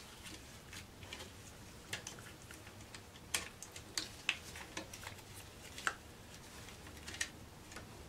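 Irregular light clicks and taps of plastic parts and wires being handled as the power switch and its wiring are pushed back into a Bosch 1617 router's motor housing.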